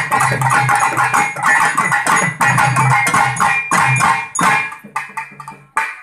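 Pambai drums, the paired cylindrical folk drums of Tamil temple music, played in a fast, dense rhythm that thins out over the last second and stops abruptly.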